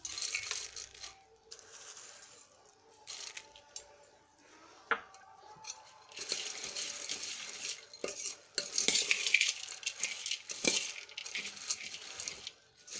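Steel ladle stirring dry puffed rice and farsan in a stainless steel pot: the crisp rustle of the puffed rice, with clinks and scrapes of the ladle against the pot. The mixing grows louder about halfway through.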